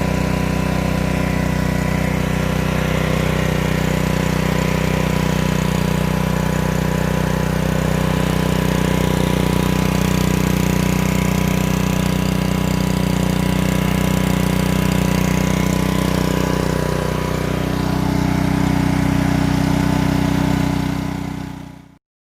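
Honda GCV160 single-cylinder engine of a Ryobi 3,000 psi gas pressure washer running steadily, with a slight shift in tone about seventeen seconds in.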